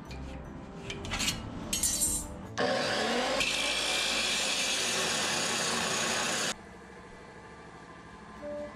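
Abrasive cut-off saw (chop saw) cutting through steel square tubing: a loud, harsh grinding screech that begins about two and a half seconds in, lasts about four seconds and cuts off suddenly. A few knocks come just before it.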